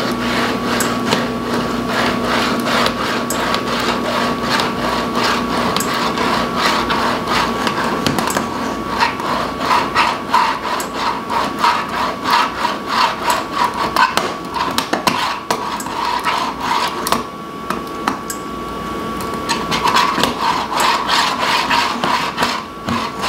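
Stainless steel spaetzle maker: the batter-filled hopper scraping back and forth across the perforated metal plate, pressing dough through the holes into boiling water. A continuous scraping at first, then a steady rhythm of distinct back-and-forth strokes.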